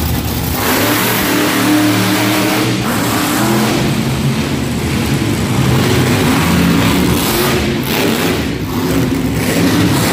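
Monster truck engine revving hard, its pitch climbing and dropping again and again as the truck drives across the dirt arena.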